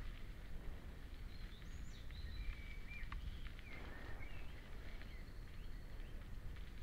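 Mountain bike rolling along a dirt path, a steady low rumble of tyres and wind on the microphone with a few faint rattling clicks, while small birds chirp and whistle in short rising and falling calls.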